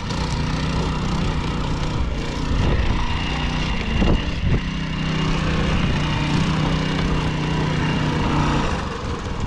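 Small off-road vehicle engine running under load while driving over a muddy, ploughed field. Its pitch rises and falls a few times in the first half, then holds steady and eases off near the end.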